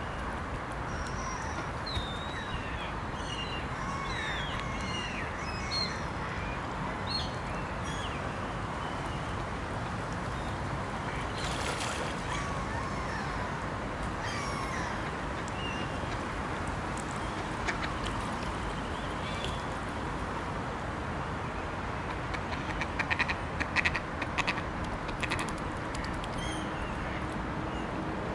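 Mallard ducks quacking in a short run of calls near the end, with small birds chirping in the first few seconds, over a steady background noise.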